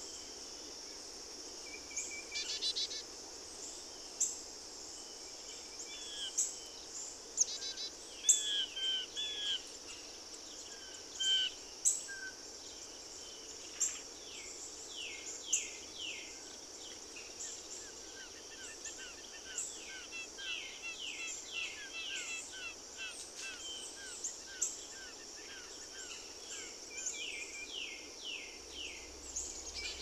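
Songbirds calling outdoors: scattered chirps, then runs of quick downslurred whistled notes repeated several times a second. A steady high-pitched hiss runs underneath.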